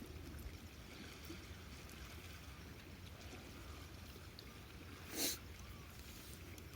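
Faint campfire crackling, a few scattered ticks over a low steady outdoor rumble, with one short louder swish about five seconds in.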